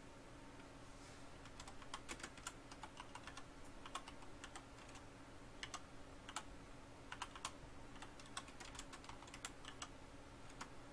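Typing on a computer keyboard: faint, irregular key clicks in short runs, starting about two seconds in.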